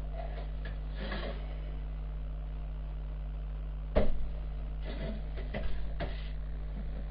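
Kitchen utensils knocking and clattering on a countertop as cooked pork is handled for cutting into cubes: a few scattered knocks, the loudest about four seconds in, with smaller clatters after it. A steady low hum runs underneath.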